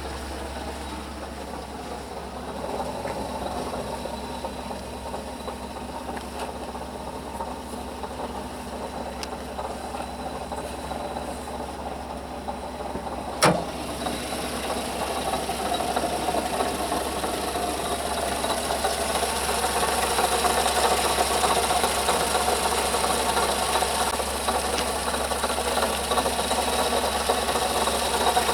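Vehicle engine running with a scraping, rattling noise from the water pump, whose bearing has failed. A single sharp click comes about halfway through, and the noise then grows steadily louder.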